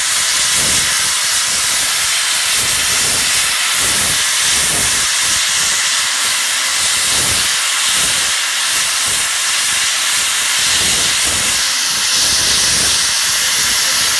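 Steam engine hissing loudly and steadily as steam escapes, with an uneven low rumble underneath.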